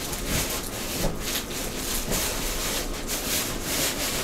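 Plastic wrapping and styrofoam packing rustling and scraping against a cardboard box as a packed popcorn machine is worked loose and lifted out, with a few light bumps.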